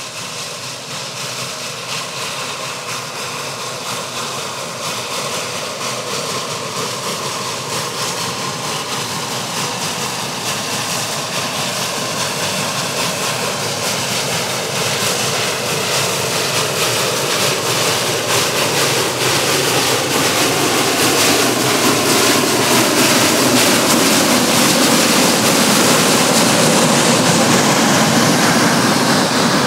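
Narrow-gauge geared steam locomotive and its train approaching, growing steadily louder.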